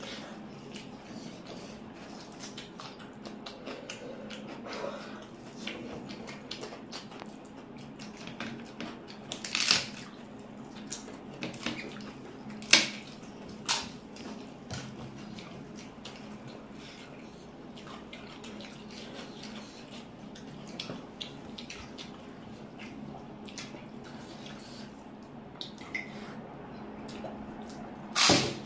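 Wet eating sounds: chewing and moist smacking of curry and rice, with sharp clicks and knocks now and then, loudest near the middle and just before the end, over a faint steady hum.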